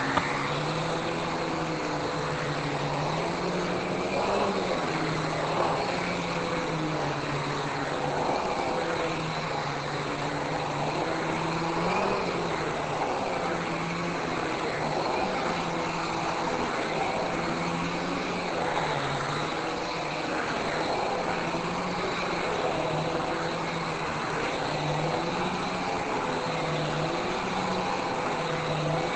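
Hoover Constellation canister vacuum cleaner running steadily, its motor hum wavering up and down in pitch as it is worked over carpet.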